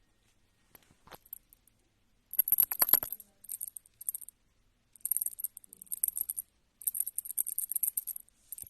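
Light metallic jingling in irregular bursts with a few soft knocks, loudest about two and a half seconds in.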